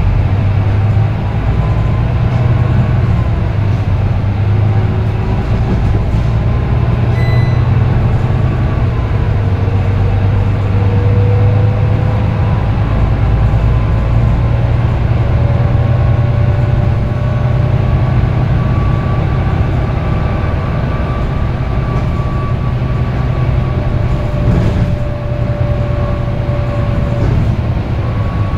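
Volvo B9TL double-decker bus with a Voith automatic gearbox running, heard from inside the lower deck: a steady low diesel drone with a whine that slides slowly up and down in pitch as the bus changes speed. A short electronic beep sounds about seven seconds in.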